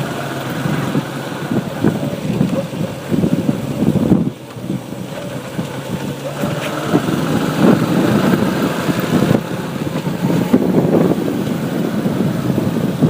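Motorbike engine running while riding in road traffic, with the rumble of surrounding vehicles; the sound briefly dips about four seconds in.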